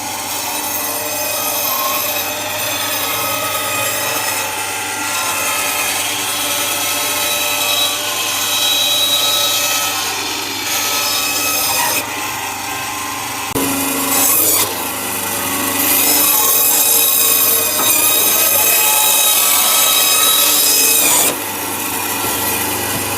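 Carving tool grinding and scraping against stone, continuous, with a steady whine running through it; the sound changes abruptly about 14 and 21 seconds in.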